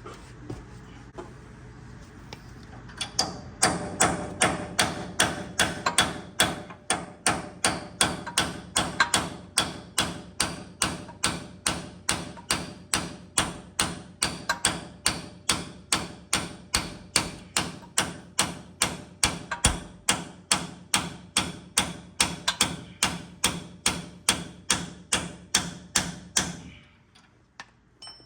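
Hammer blows on a metal punch, driving a part out: a long, steady run of strikes at about two a second. They begin about three seconds in and stop shortly before the end.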